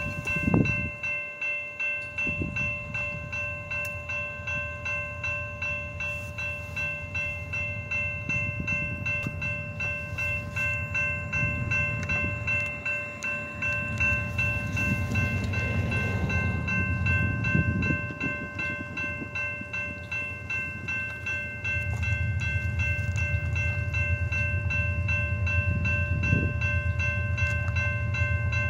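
Railroad crossing bell ringing steadily at a regular beat, with the low rumble of an approaching train growing louder from about halfway through.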